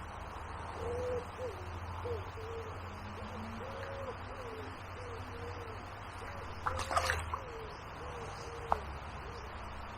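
A bird cooing: a long run of short, low hooting notes, each rising and falling, repeated one after another. A brief clatter about seven seconds in.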